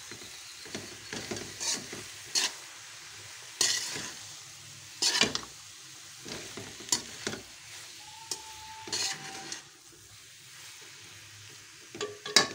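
A spoon stirring thick carrot halwa with soaked nuts in a metal pot, scraping and clinking against the pot at irregular intervals over a faint sizzle.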